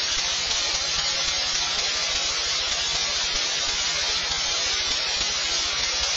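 Steady static hiss, an even wash of white noise that holds at one level without any change.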